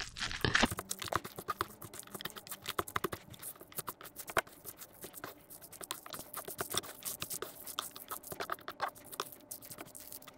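A spoon mixing bibimbap (rice, vegetables and egg) in a bowl: rapid, irregular clicks and scrapes of the spoon against the bowl as the rice is stirred.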